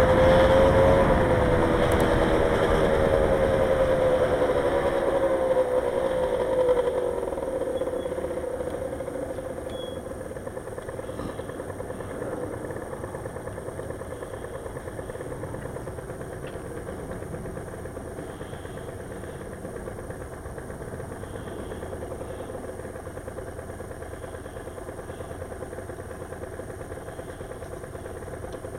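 Vehicle engine slowing down, its pitch falling along with rushing air noise over the first several seconds, then idling steadily and more quietly while the vehicle stands at a red light.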